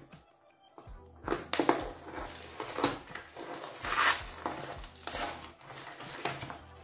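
A small box of packaging being opened by hand: irregular crinkling, rustling and tearing, starting about a second in.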